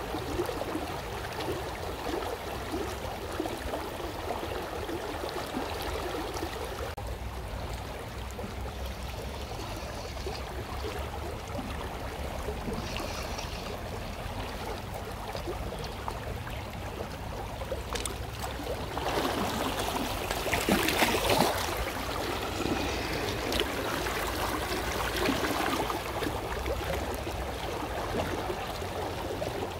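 River water flowing steadily over a riverbed, a continuous rushing noise with a low rumble beneath it. About two-thirds of the way in it swells for roughly three seconds into a louder, fuller stretch of noise.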